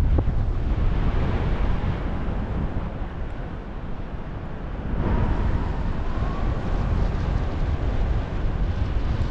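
Wind rushing over the microphone of a paraglider pilot's camera in flight: a steady roar of airflow that eases a little around three to four seconds in and picks up again about a second later.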